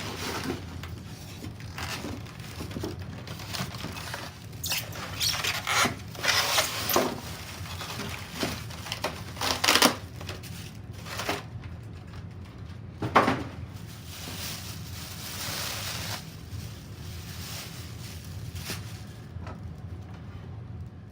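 Rustling and crinkling packaging and handling knocks as a hobby magnifying lamp is pulled out of its box, with a sharp knock about two-thirds of the way through, over a low steady hum.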